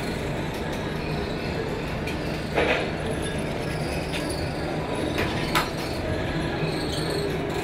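Steady low hum and background noise, with a few sharp metallic clicks from a .30 bore pistol being handled: the loudest a little over two and a half seconds in, two shorter ones about five seconds in.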